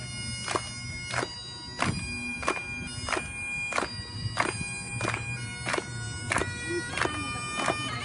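Bagpipes playing a tune over their steady drones, with a group of people clapping along in time, about three claps every two seconds.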